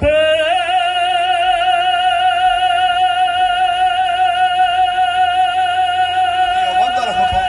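Mariachi holding one long, high final note with vibrato, which scoops up slightly as it starts and is sustained for about seven seconds to close the song.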